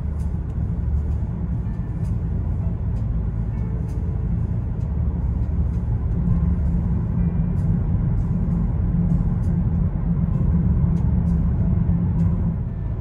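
Cabin noise of a Volkswagen T-Roc 2.0 TDI cruising at steady speed: a steady low road-and-tyre rumble that grows a little louder about halfway through.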